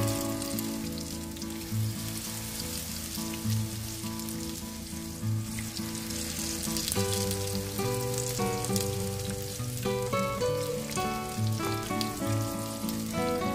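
Spoonfuls of eggplant fritter batter sizzling and frying in shallow hot oil in a wok, a steady crackling hiss. Background music with held notes plays underneath.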